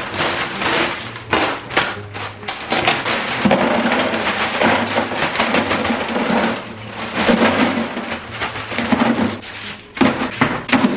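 Ice cubes poured from a plastic bag into a plastic picnic cooler: a long run of clattering and rattling ice against the plastic, with the bag rustling.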